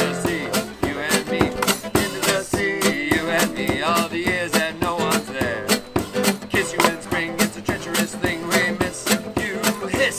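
Background music led by a plucked guitar over a steady beat.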